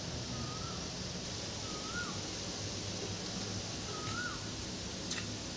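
Three short bird calls, each a brief note that rises and then drops, about two seconds apart, over a steady background hiss. A single sharp click near the end.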